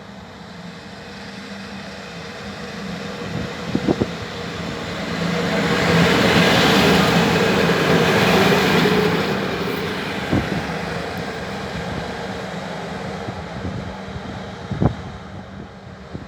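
A train passing by on the rails: its rumbling noise builds to a peak about halfway through and then fades away, with a few sharp knocks along the way.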